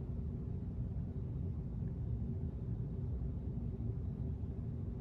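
Steady low background rumble with a faint steady hum: room tone, with no distinct sound from the icing being piped.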